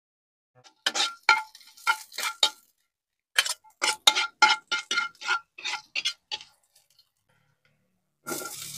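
Metal spatula tapping and scraping against a wok, a run of sharp ringing clinks about three a second, in two bursts. Just before the end, sizzling starts as mushrooms drop into the hot pork fat.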